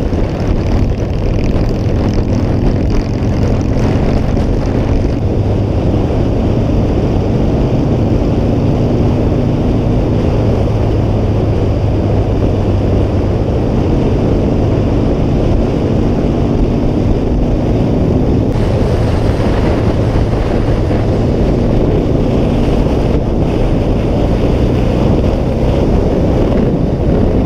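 Harley-Davidson Sportster's air-cooled V-twin running steadily at cruising speed, mixed with the rush of wind over the microphone. The wind hiss grows louder about two-thirds of the way through.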